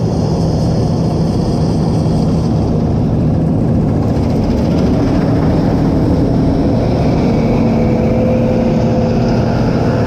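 Gleaner combine harvesting soybeans, its engine and harvesting machinery running loud and steady as it drives close past.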